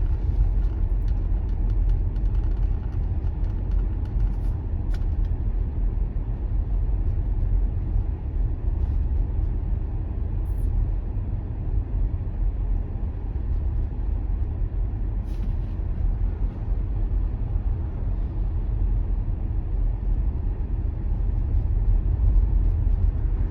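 A car being driven along a road: steady low road and tyre rumble, with a few faint ticks.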